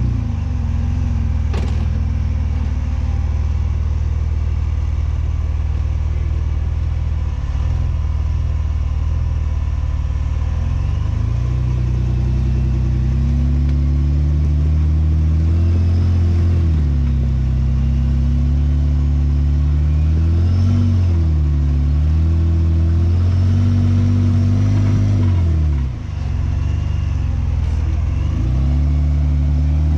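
Jeep Wrangler JK rock crawler's engine running under load, revved up and eased off several times as the Jeep tries to climb a steep rock ledge. A single sharp knock sounds about a second and a half in.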